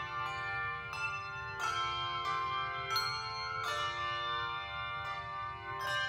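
Handbell choir ringing a slow hymn-like piece: chords struck about once a second, each left ringing into the next with a bright, shimmering overlap.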